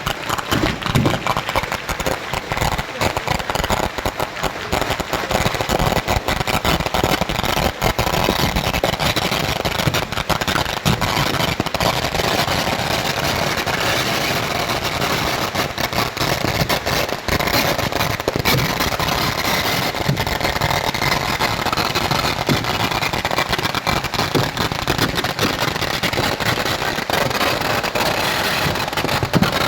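Fireworks display in a rapid, unbroken barrage of bangs, so dense that they run together into one continuous crackle at a steady level.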